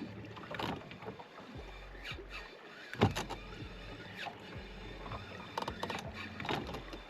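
Irregular knocks, clicks and rattles of gear being handled in a small fishing boat, the loudest a sharp knock about three seconds in, over a faint low hum.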